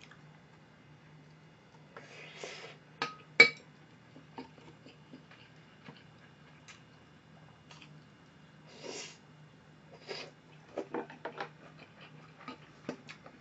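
Scattered clicks and taps of chopsticks and utensils against dishes and a wooden cutting board, the loudest a sharp clink about three and a half seconds in. A couple of short soft rustling noises sit between them.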